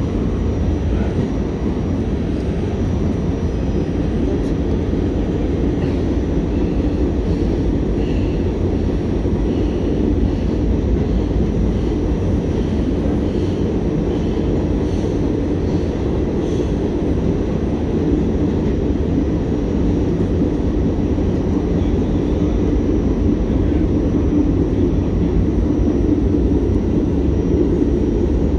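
R46 subway car running at speed, heard from inside the car: a steady low rumble of steel wheels on rail and running gear.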